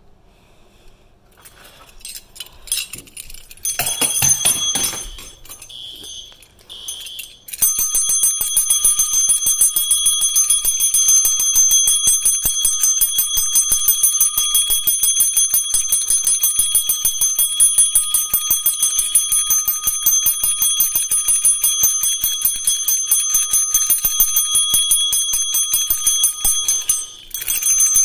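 A few clicks and handling clatter, then, about seven and a half seconds in, an electric fire alarm bell starts ringing continuously with very rapid strikes: the alarm sounding after the pull station has been pulled. The ringing breaks off for a moment near the end and starts again.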